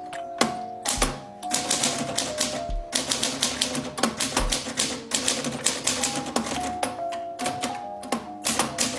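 Typing on a Brother Deluxe 760 TR manual portable typewriter: an irregular run of sharp key strikes, several a second, as the typebars hit the ribbon and paper. Background music plays underneath.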